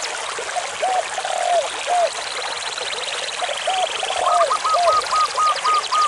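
Mountain stream rushing over rocks as a steady wash of water, with birds calling over it. A group of three low calls comes twice, a high trill sounds in the middle, and a run of short, higher notes begins about two-thirds of the way through.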